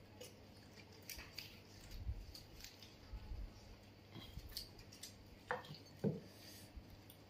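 Crisp gol gappe (pani puri) shells being cracked open and eaten: faint scattered crackling and crunching, with two sharper clicks about five and six seconds in.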